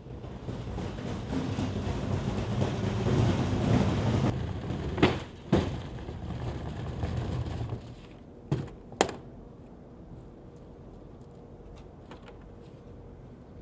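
Large hard-plastic transport case being pulled across a concrete floor: a rough scraping rumble that builds over the first few seconds, broken by two knocks about five seconds in, and followed by two sharp clacks of the case near the middle.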